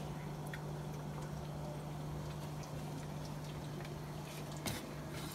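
Quiet room tone: a steady low hum, with a few faint clicks and one slightly louder tap near the end.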